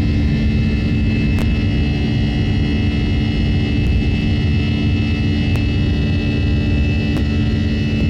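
Steady jet engine and airflow noise inside the cabin of an Airbus A320 in flight: a constant rumble with a steady hum and a faint high tone, and a few faint clicks.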